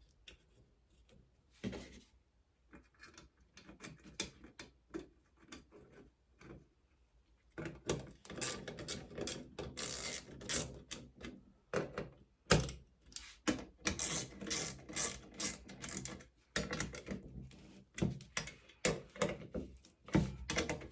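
Small metal parts of a bicycle crank's chainring assembly clicking and clattering as they are handled and fitted together by hand. A few light clicks at first, then after about seven seconds a busy, irregular run of clicks and knocks.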